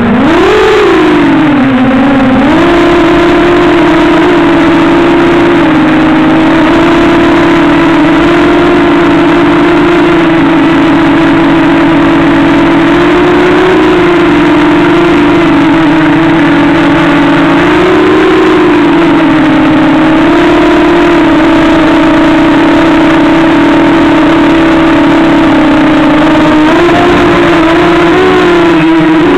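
Small multirotor drone's electric motors and propellers giving a loud, steady whine in stabilised flight. The pitch dips and climbs back about a second in, then rises slightly a couple of times later on.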